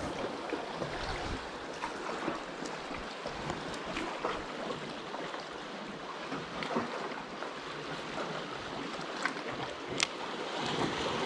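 Sea water lapping and washing against the rocks, an even wash of water noise with a few faint clicks, the sharpest about ten seconds in.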